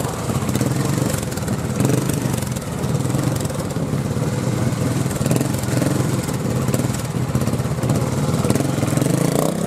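Single-cylinder trials motorcycle engine running at low revs and rising and falling a little as the bike is ridden slowly over rocks.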